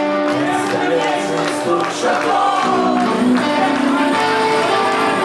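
Live rock band music: held and wavering tones from instruments, with some voice.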